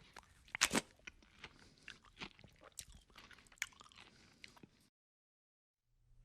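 Crunching and chewing sound effect: a string of irregular crisp crunches, the loudest under a second in, that cuts off abruptly about five seconds in.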